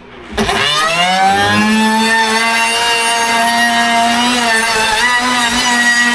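Electric power-tool motor switched on, rising quickly in pitch as it spins up to speed, then running at a steady high speed.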